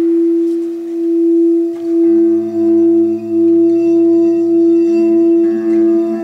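Frosted quartz crystal singing bowl being rimmed with a mallet, sounding one strong steady tone that swells and dips in loudness. A second, lower tone joins about two seconds in.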